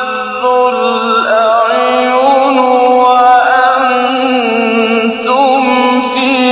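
A man chanting Quranic recitation in the tajweed style, holding long notes that waver and turn in pitch as he stretches the vowels. Faint rain hiss lies beneath the voice.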